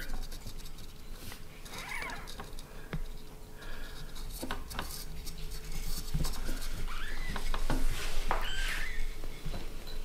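Newborn kitten giving a few short, high-pitched mews that rise and fall in pitch, with light knocks and rustles as the bowl it sits in is handled.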